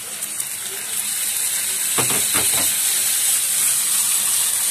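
Dried fish (shutki) just tipped into hot oil and spice paste in a pan, sizzling. The sizzle grows louder about a second in, and a few strokes of a silicone spatula stirring the pan come around two seconds in.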